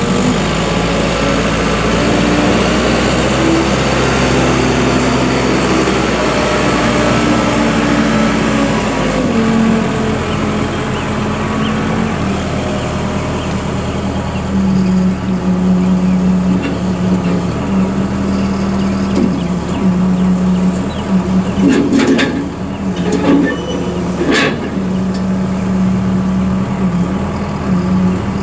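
2006 Case 580M XT skip loader's diesel engine running as the machine drives and maneuvers, its speed rising and falling for the first dozen seconds, then running steadily at a lower pitch. A few sharp knocks come about two-thirds of the way through.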